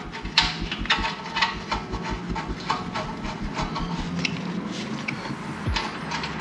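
Irregular clicks, knocks and rubbing from hands handling the exhaust pipe and its sensor wiring during fitting.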